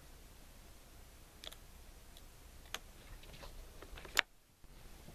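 Light clicks from a Martini single-shot rifle being handled and loaded, a few spaced over the seconds, then a sharper, louder click about four seconds in.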